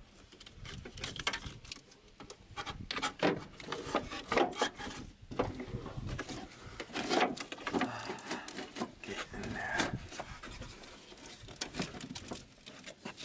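Hand-work noise in a vehicle engine bay: irregular clicks, knocks and scraping as tools, wiring and plastic parts are handled and rubbed.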